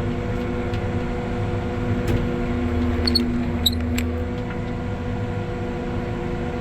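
Crop sprayer's engine running steadily, heard from the cab while the machine backs up at the end of a pass. A few light clicks and squeaks come about two to four seconds in.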